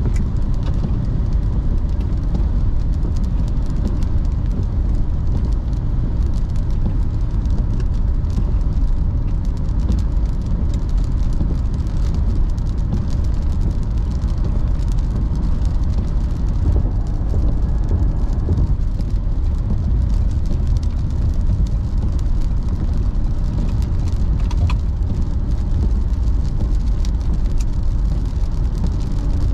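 Steady low road and tyre rumble of a car at highway speed on wet pavement, heard from inside the cabin, with faint scattered ticks of rain hitting the windshield.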